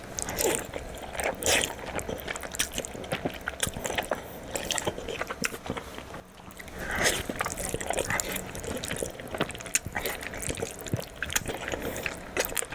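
Close-miked wet eating sounds of black bean noodles (jjajangmyeon): chewing and slurping, a string of small irregular smacks and clicks.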